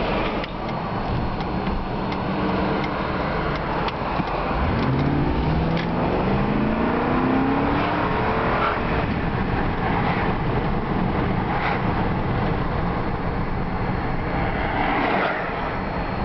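A 1996 Lincoln Town Car's 4.6-litre V8, heard from inside the cabin, runs steadily for about four seconds, then pulls away under hard acceleration. Its note rises in a few steps over the next four seconds and then settles into a steady cruise with road noise.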